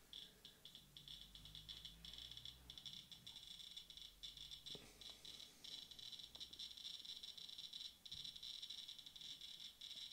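Radiation detector clicking in rapid, irregular ticks that grow denser until nearly continuous from about three seconds in. The rising click rate is the sign of a rising count rate as the detector comes close to a radioactive rock sample.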